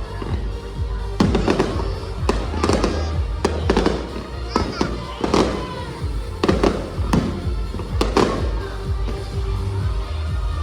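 Fireworks bursting in quick succession, a sharp bang every half-second to a second, over music playing for the show.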